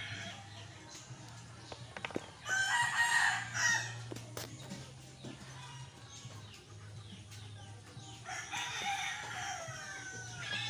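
Rooster crowing twice, each crow about a second and a half long, the first about two and a half seconds in and the second near the end.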